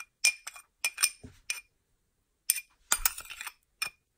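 Metal spoon clinking against a glass bowl as salad dressing is scraped out of it: a run of sharp clinks with a short ring, a pause of about a second, then a quicker cluster of clinks.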